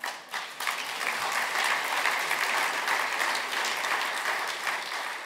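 Audience applauding: a few scattered claps at first, quickly swelling into full applause that eases off near the end.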